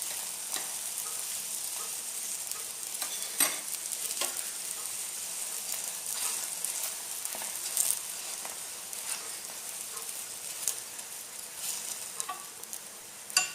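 Parotta frying in freshly poured groundnut oil on a hot griddle: a steady sizzle with a few sharper pops.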